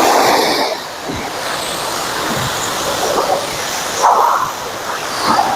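Car-wash water spray hitting a car, a steady loud hiss with a few swells as the spray moves.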